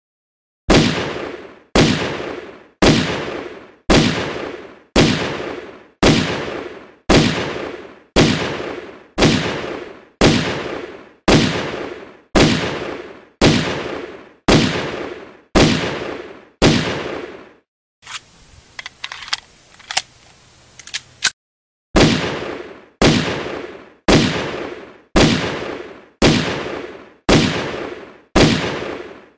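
Walther P99 pistol fired in single shots about one a second, each shot with a tail that dies away over the following second: seventeen shots, then a pause of about three and a half seconds with a few sharp clicks, then the shots resume at the same pace.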